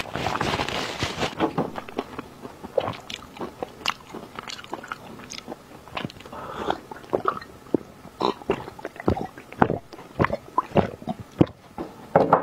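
Close-miked eating sounds: a paper tissue rustling against the hands for the first second or so, then a run of sharp, wet mouth clicks and chewing smacks, with a sip from a drink partway through.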